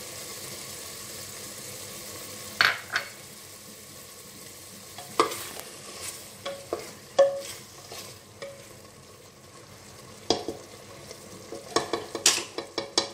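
Frying liver masala sizzling steadily in an aluminium pressure cooker as curd is added, then a wooden spoon stirring it and knocking sharply against the pot's metal side again and again.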